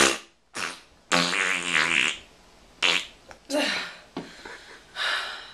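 A string of farts, about five in all: a short one, then a drawn-out pitched one lasting about a second, then shorter ones spaced out.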